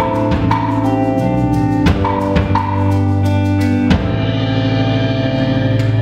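Live band of electric guitar, bass guitar, drum kit and keyboard playing, with sharp drum hits accenting the music until about four seconds in. From there the band holds one sustained chord without drums, the song's closing chord.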